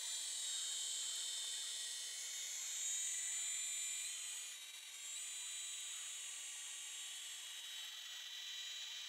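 Radio-controlled helicopter's motor and rotor running with a steady high whine. It dips briefly about halfway through, then picks back up.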